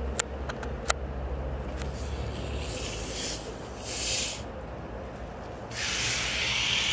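A plastic bottle of cola has its screw cap twisted open, and the carbonation escapes in two short hisses and then a longer, louder hiss near the end. A couple of sharp clicks of crockery come about a second in.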